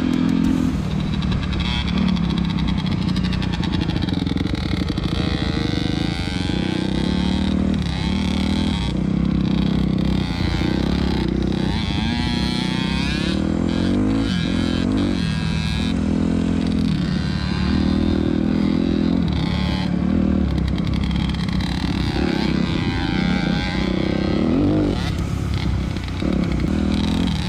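Dirt bike engine running while riding, its pitch climbing and dropping again every second or two as the throttle is rolled on and off.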